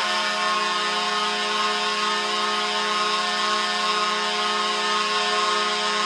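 Florida Panthers hockey arena goal horn sounding one long, steady blast at a constant pitch, rich in overtones.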